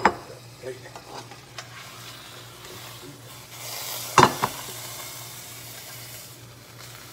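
A ceramic bowl knocks down onto the countertop, followed by a few light clicks. About four seconds in, a metal frying pan and spatula clank twice against the bowl as a quesadilla is slid out, with a sizzling hiss from the hot pan for a couple of seconds, over a steady low hum.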